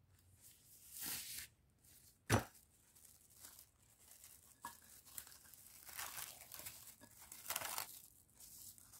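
Plastic cling film pulled and stretched over a glass bowl, crinkling in irregular bursts, with one sharp snap a little over two seconds in.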